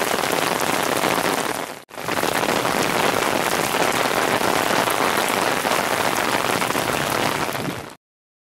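Heavy rain pouring onto a flooded street, drops splashing into standing water in a dense, steady hiss. It drops out for an instant about two seconds in and cuts off suddenly near the end.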